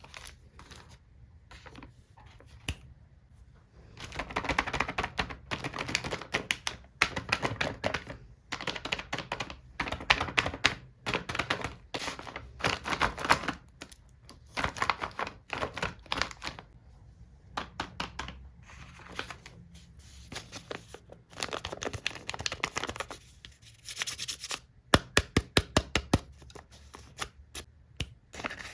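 Stationery packaging being handled and opened: bursts of crinkling and rustling a second or two long, separated by scattered clicks and taps, with a quick run of sharp clicks near the end.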